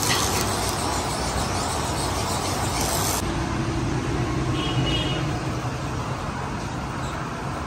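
Electric arc welding, a dense steady crackling hiss, cutting off suddenly about three seconds in. After that a duller steady background noise with a low hum.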